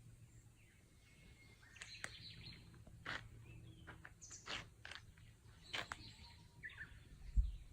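Small birds chirping in short, scattered calls, with a low muffled thump near the end.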